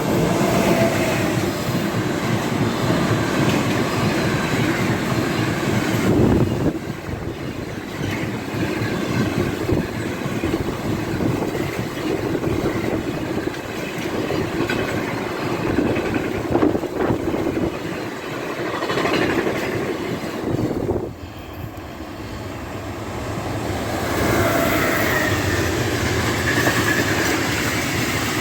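Freight train running past close by: a continuous loud rumble and rattle of wagon wheels on the track, dipping briefly about six seconds in and again around twenty-one seconds.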